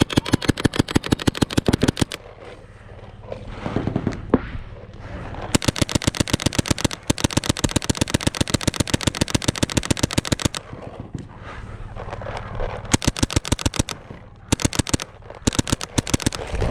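Paintball markers firing rapid strings of shots in several bursts with short pauses between, the nearest being a mechanical WGP Prostock Autococker.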